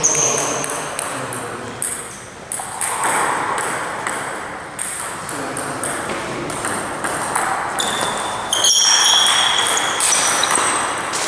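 Table tennis balls clicking off bats and a Joola table in quick back-and-forth rallies, with many sharp pings throughout. Voices are heard faintly in the background.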